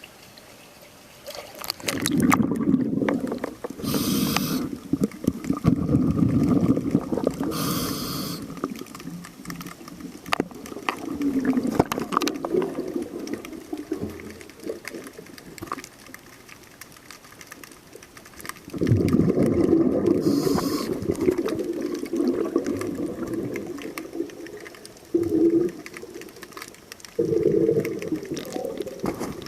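Diver breathing through a scuba regulator underwater: a short sharp hiss of inhalation, then a long rumbling rush of exhaust bubbles, repeated over several breaths.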